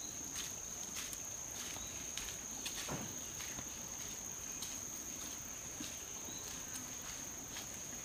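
A steady, high-pitched insect drone with faint, irregular taps of sandal footsteps on a dirt path.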